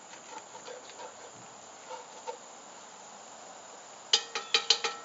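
Wooden spoon stirring and scraping through hash browns in a cast iron Dutch oven, with faint light clicks. About four seconds in comes a quick series of about five sharp, ringing knocks, louder than the stirring.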